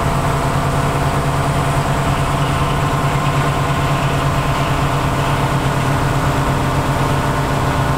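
Steady low hum of a stationary electric commuter train's onboard equipment, heard from inside the cab, with faint steady tones above the hum and no change in level.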